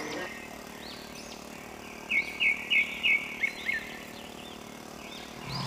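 A small bird chirping: scattered short rising-and-falling notes, with a run of about four quick chirps about two seconds in, over a faint, steady background.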